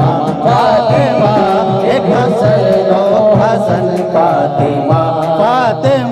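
A man singing a devotional Urdu manqabat into a microphone, drawing out a wavering, ornamented melodic phrase with no clear words, over a steady held tone.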